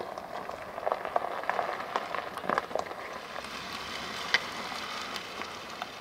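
Large all-terrain tyres of an electric Mercedes-Benz EQC 4x4² rolling over grit and small stones on paving, a steady crackle with scattered small clicks and one sharper tick about four seconds in.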